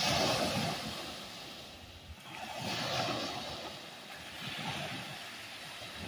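Small lake waves breaking on a sandy beach, surf washing in three swells: the strongest at the start and about three seconds in, a weaker one near five seconds.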